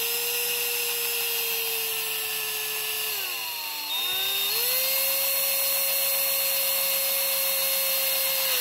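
Electric drill spinning a small bit through the thin plastic floor of a model trailer: a steady motor whine whose pitch sags about three seconds in as the bit bites, then picks back up and holds a little higher.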